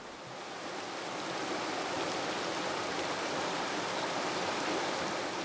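Creek water flowing and rushing steadily, swelling up over the first couple of seconds.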